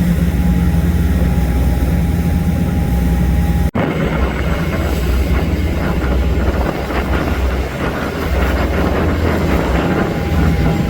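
Charter fishing boat's engine running steadily underway, a loud low drone with rushing wind and water noise over it. The sound drops out for an instant about four seconds in, then the same drone carries on.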